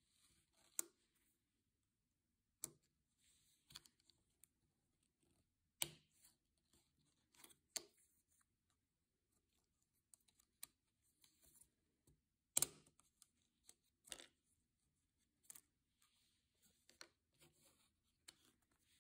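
Scattered sharp plastic clicks and soft scraping as a flat plastic pry tool works under a Logitech MX Keys keycap, sliding along its edge and popping the clips and metal stabiliser bar loose. The loudest click comes about two-thirds of the way through.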